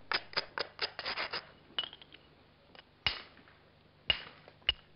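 A soft limestone hammerstone scraping and clicking against the edge of an obsidian biface during flintknapping. About seven quick scratchy clicks come in the first second and a half, then four separate sharper knocks of stone on stone.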